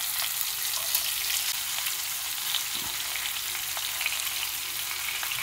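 Masala-coated pompano pieces sizzling steadily in sesame oil on a flat tawa, with a constant crackle of spattering oil. A few faint ticks come as the pieces are turned with metal tongs.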